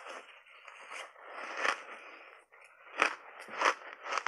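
Purple ice chunks dusted with matcha and milk powder crunching as they are bitten and chewed: a series of crisp crunches about every half second to second, the loudest about three seconds in.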